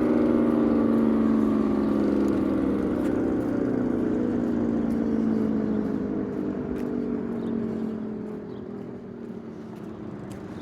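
Outdoor warning siren winding down at the end of its test, its tone sliding slowly lower and fading away over several seconds.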